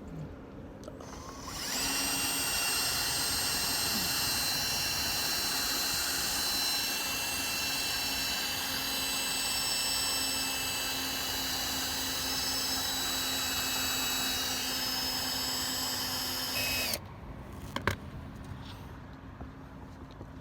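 Small electric drill running steadily, drilling out the rivets of a die-cast model car. It starts about a second and a half in, holds a steady whine for about fifteen seconds, cuts off suddenly, and is followed by a single click.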